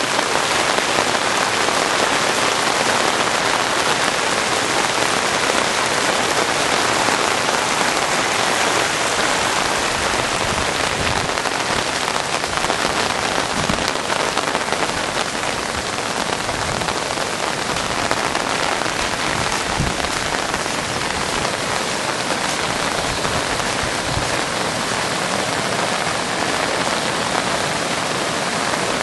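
Steady heavy rain falling on pavement and water, a dense even hiss.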